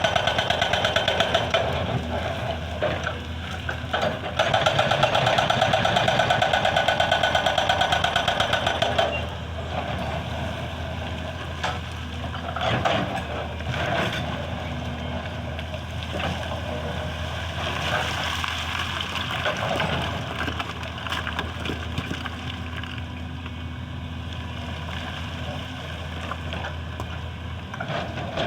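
Excavator-mounted hydraulic breaker hammering rapidly on stone in two long runs, stopping about nine seconds in. After that a heavy diesel machine runs steadily, with scattered knocks.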